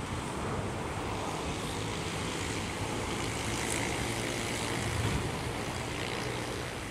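A distant engine's steady low rumble under outdoor background noise.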